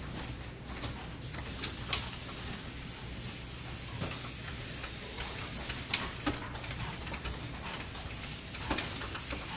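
Pneumatic slides and gripper of an automated pick-and-place cell cycling: scattered sharp clicks and knocks as the actuators hit their end stops and the valves switch, over a steady low hum.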